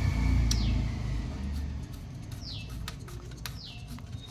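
A bird giving three short, high chirps that fall in pitch. Under them is a low rumble of handling noise with a few clicks in the first two seconds, as cables are plugged back into the set-top box.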